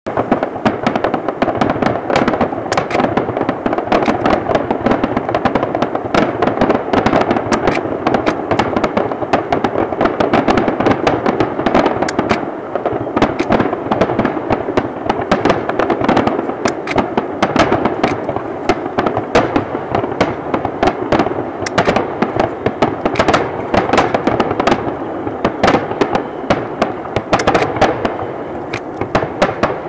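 Aerial fireworks finale: a dense, unbroken barrage of shell bursts and crackling, many bangs a second overlapping.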